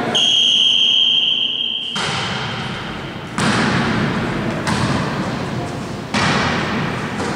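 Referee's whistle blown in one long, steady blast of about two seconds, the signal for the serve in a volleyball match. Then come sudden thuds of the ball being played and players' voices, at about three and a half and six seconds in.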